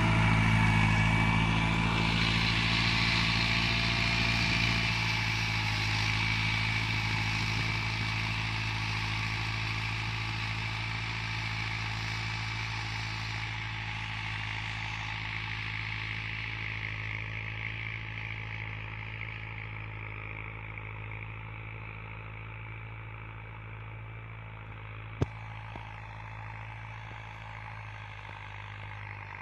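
Steyr 8073 tractor's diesel engine running steadily under load while pulling a two-bottom plow, fading slowly as the tractor moves away. A single sharp click near the end.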